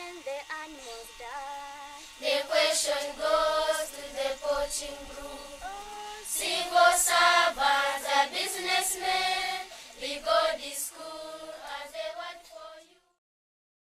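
A group of primary-school children singing a song together in chorus; the singing stops near the end.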